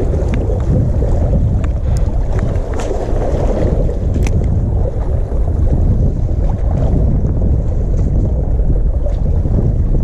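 Wind buffeting the microphone as a steady, loud low rumble, with the sea surging behind it and a few faint ticks.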